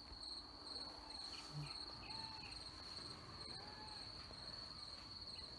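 Crickets trilling in the grass at dusk: a faint, steady, high-pitched pulsing chirr, with a second, higher chirp repeating about twice a second.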